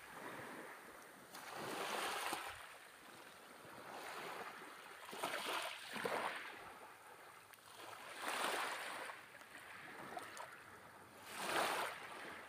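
Small waves washing onto a beach, each wash swelling and fading about every two to three seconds.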